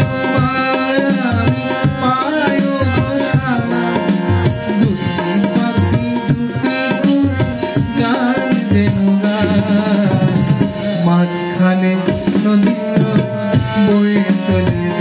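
A song: a male voice singing in phrases with wavering held notes over steady tabla drumming.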